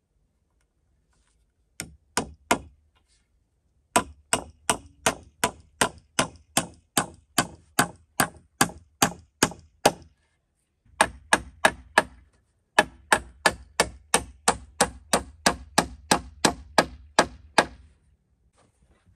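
Hammer blows driving nails into the joints of a peeled-log pole frame, struck at an even pace of about two a second in several runs with short pauses between them.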